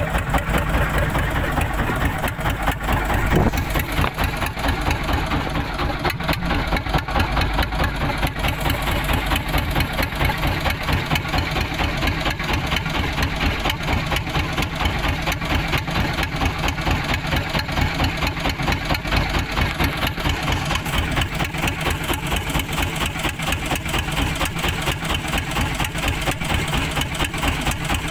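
Small fishing boat's engine idling at sea, running steadily with an even, rapid pulsing beat.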